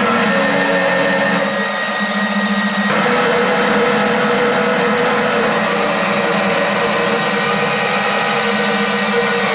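Circuit-bent Yamaha PSS-790 vector synthesizer keyboard putting out a dense, harsh, buzzing glitch texture with a few held tones. Its short-circuited control logic scrambles the voice. The texture shifts about three seconds in.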